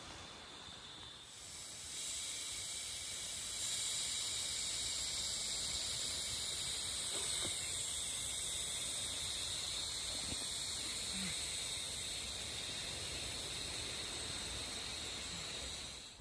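A steady high-pitched hiss that swells in about two seconds in, holds evenly, and fades out just before the end.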